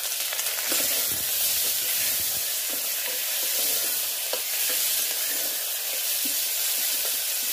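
Chopped tomatoes and onions sizzling in hot mustard oil in an aluminium pressure cooker, a steady frying hiss, stirred with a wooden spatula that knocks and scrapes against the pot now and then.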